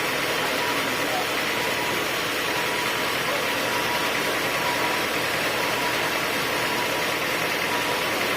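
Sawmill machinery running with a steady, unchanging mechanical noise.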